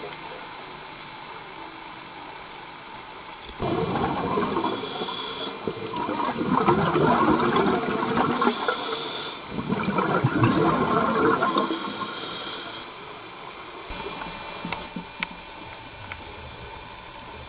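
Scuba diver breathing through a regulator underwater: short hissing inhalations about every four seconds, with loud bursts of exhaled bubbles between them.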